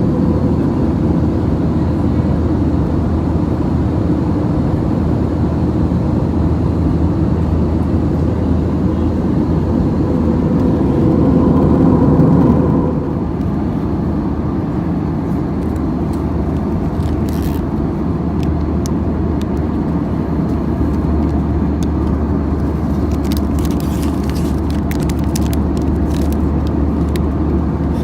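Steady engine and airflow rumble inside the cabin of an Airbus A320 airliner, with a faint whine that drops away and a dip in level about halfway through. A few light clicks and rattles come near the end.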